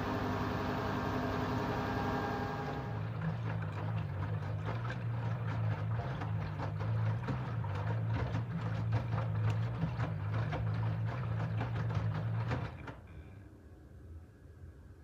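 LG F13D9NC front-loading washing machine. For the first three seconds the drum is spinning with a high whine in the intermediate spin. That whine stops abruptly, and the drum then tumbles the wet load for the rinse with a low motor hum and splashing and thudding laundry. The drum stops about two seconds before the end.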